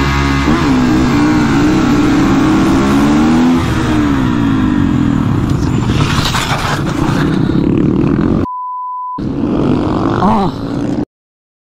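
Supermoto motorcycle engine revving up and down through the gears, then a burst of scraping noise about six seconds in as the bike goes down. A single steady beep about eight and a half seconds in, and the sound cuts off shortly before the end.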